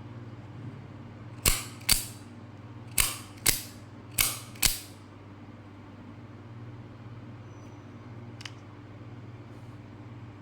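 Aluminium-handled double-action OTF utility knife being fired and retracted: six sharp metallic snaps in three quick pairs, the blade shooting out and snapping back each time, then one faint click near the end.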